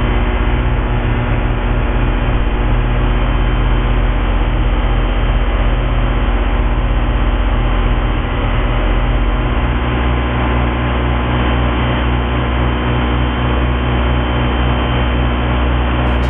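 John Deere tractor engine running steadily with its snow blower, a constant low drone with a rough pulsing; the low part of the drone shifts about ten seconds in.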